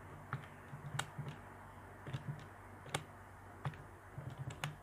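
Plastic keys of a Casio scientific calculator being pressed, a dozen or so short clicks at irregular spacing as a long expression is keyed in.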